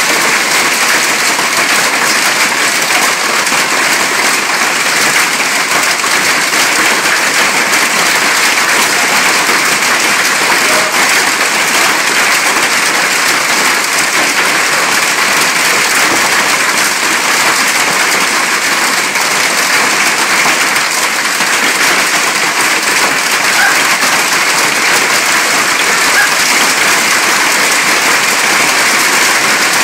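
Hailstorm: dense hail and rain pelting the patio roof overhead and the lawn, a loud, steady patter with no letup.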